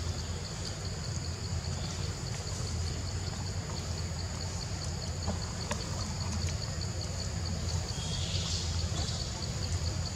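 Outdoor forest ambience: a steady low rumble under a high, evenly pulsing drone of insects, with a brief higher chirp about eight seconds in.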